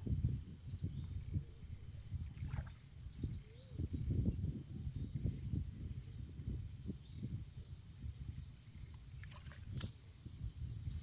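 A bird repeating a short, high, falling chirp about once a second, over louder irregular low rumbling and a faint steady high tone.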